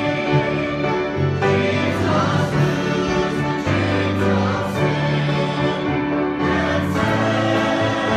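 Church choir singing a gospel song in long held chords that change a few times.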